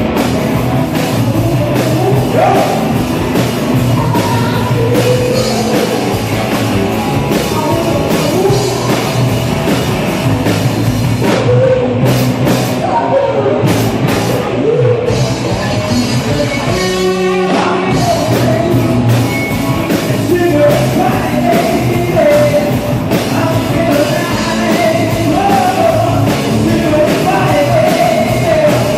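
A live rock band playing: drum kit, electric guitar and bass under a sung lead vocal, with a woman singing and later a man.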